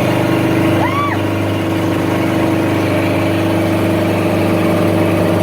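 Helicopter engine and rotor running steadily at an even pitch.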